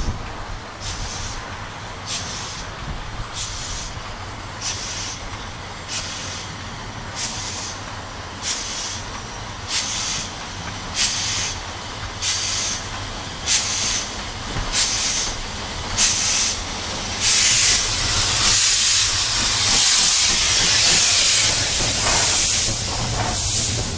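Steam locomotive No. 29 approaching slowly, its exhaust beats coming steadily about once a second and growing louder. From about seventeen seconds in a loud continuous steam hiss takes over as the engine passes close by, followed by the rumble of the coaches.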